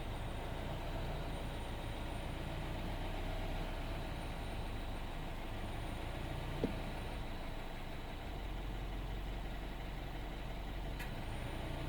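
BMW F20 116i's N13 1.6-litre turbocharged four-cylinder engine running steadily, with a whistle over the engine note. There is a single brief click about halfway in.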